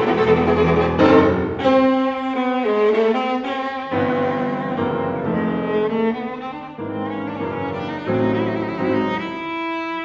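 Viola and grand piano playing a classical viola sonata: bowed viola lines over piano, loudest and fullest in the first second or two, then held notes moving from pitch to pitch.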